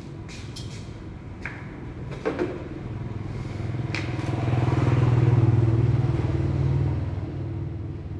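A vehicle engine running close by, growing louder about three seconds in and fading again near the end, with a few sharp clicks and knocks in the first half.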